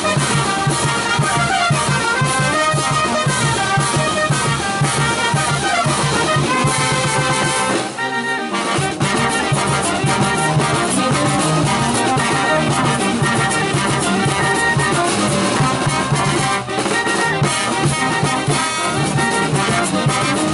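Andean village brass band playing: trumpets, saxophones and sousaphones over snare drum and bass drum with cymbal. A short pause about eight seconds in.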